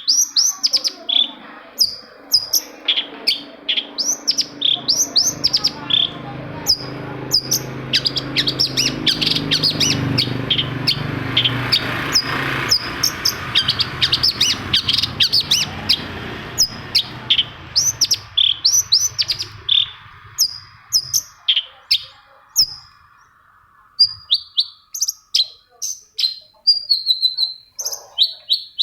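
Long-tailed shrike (cendet) singing a rapid, continuous run of short high chirps and trills. A low rumble swells in a few seconds in, is loudest near the middle, and fades out before the last third.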